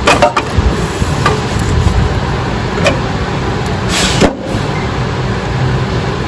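Metal parts knocking as a mount is worked into position under the car: a few sharp knocks in the first second, single ones around one and three seconds in, and a brief louder scrape about four seconds in, over a steady low hum.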